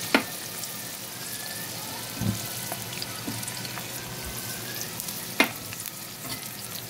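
Chopped onions sizzling in hot oil: a steady frying hiss. Two sharp knocks, one right at the start and one about five seconds in, and a duller thump about two seconds in.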